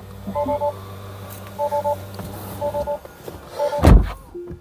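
Tesla Model 3 electronic warning chime repeating about once a second, each time a quick triple beep in two pitches, over a steady low hum. A heavy thump near the end is the loudest sound, followed by a short single tone.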